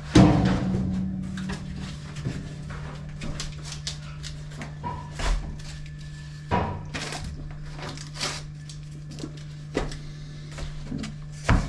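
A plastic crate is set down with a loud clatter, followed by scattered knocks and rustles of corrugated cardboard rolls and paper sheets being handled, over a steady low hum.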